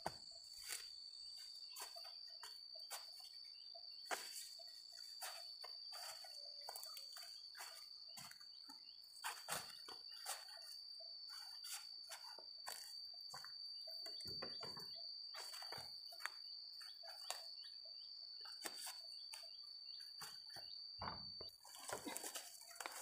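A steady high-pitched insect drone, with frequent short crackling snaps and rustles of dry corn leaves and husks as ears of sticky corn are broken off the stalks and dropped into a woven basket.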